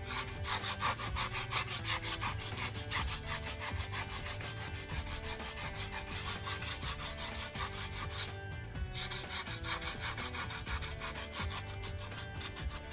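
80-grit sandpaper rubbing back and forth over the curb-rashed rim of an alloy wheel in quick, repeated scratchy strokes, pausing briefly about eight seconds in.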